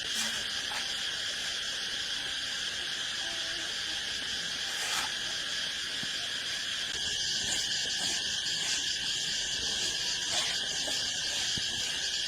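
A steady, shrill chorus of crickets and other insects, unbroken, with a few faint clicks.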